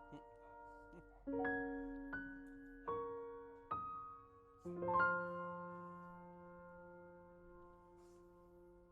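Background piano music: a few single notes and chords, then a final chord about five seconds in that rings on and slowly fades away.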